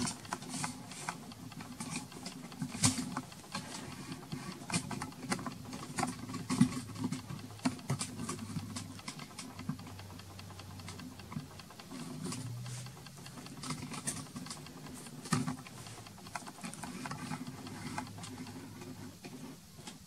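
Irregular light clicks, taps and rustles of hands handling and repositioning a taped matte board to straighten it, over a low steady hum.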